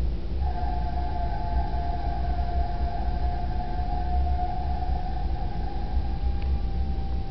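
Inside a DB class 422 electric multiple unit standing at a platform: a low steady hum, joined about half a second in by a steady high whine that wavers slightly and settles into one held tone near the end.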